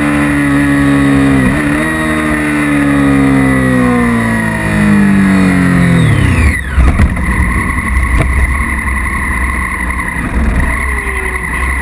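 Honda CBR600RR's inline-four engine slowing down, its note falling steadily, with a brief dip about a second and a half in. About six and a half seconds in the engine note drops away, leaving a low rumble as the bike rolls to a stop.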